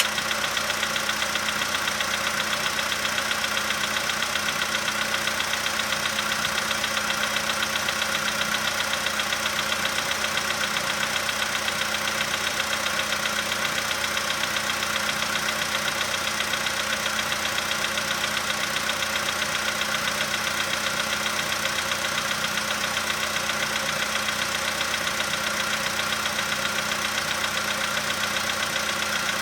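Volkswagen Polo sedan's four-cylinder petrol engine idling steadily during a cold-start warm-up, with a fast, even knocking running through it. The knock shows only while the engine is cold, and the owner suspects the hydraulic valve lifters.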